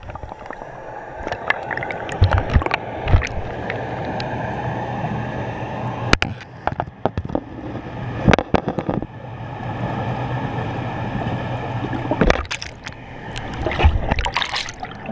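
Muffled underwater sound heard by a GoPro in its housing beneath a swimming pool's surface: a steady low rush of water with a faint low hum, broken by several sharp knocks and clunks as the camera is handled.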